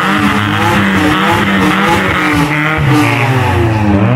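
A motor vehicle engine revving, its pitch rising and falling several times.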